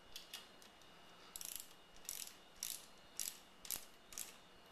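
Small metallic clicks from a wrench tightening the brake cable bolt on a bicycle caliper: a quick rattle about a second and a half in, then single clicks about twice a second.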